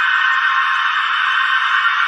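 Horror strings sound effect: a dense cluster of high string tones held steady and unchanging, a sustained eerie drone.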